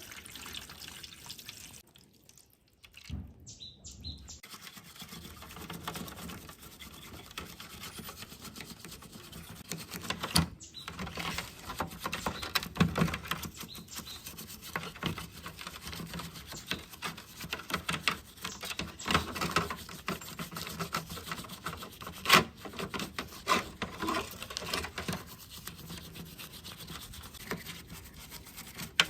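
Irregular hand rubbing and scraping strokes on a hard surface. There is a short lull about two to four seconds in, after which the strokes come thicker and sharper.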